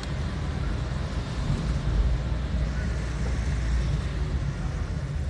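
Steady low rumble of a car driving slowly, its engine and road noise heard from inside the cabin.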